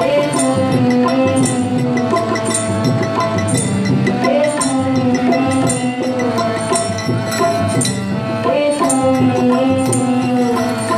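Live Bengali song with a woman singing over a harmonium, accompanied by tabla and small jingling hand percussion keeping a steady beat.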